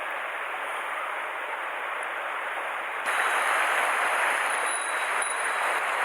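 Mountain stream water rushing over rocks, a steady noisy wash that gets abruptly louder about halfway through.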